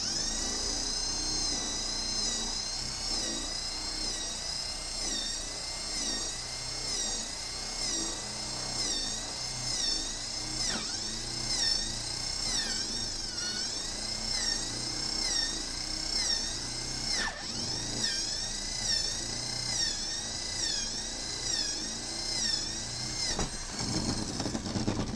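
Corded electric drill running continuously, drilling overhead into wood shingle siding. Its whine wavers in pitch about once a second and drops sharply twice, then cuts off abruptly at the end.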